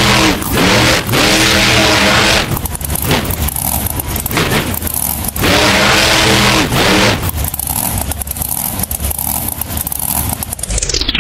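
Monster truck engine revving hard in two big bursts, the pitch rising and then falling each time, with loud engine noise in between.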